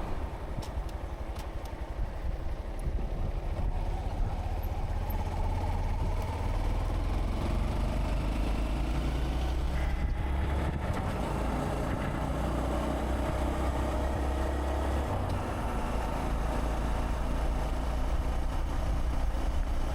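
Honda Monkey 125's single-cylinder four-stroke engine running steadily as the motorcycle is ridden along a road, with road and wind noise. The engine note shifts about three-quarters of the way through.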